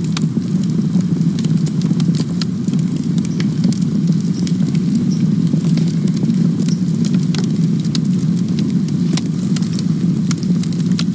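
Wood campfire burning with a steady low roar and frequent sharp crackles and pops.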